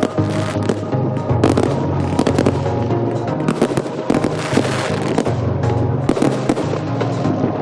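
Fireworks going off in a dense, rapid string of bangs and crackles, with music playing along with them.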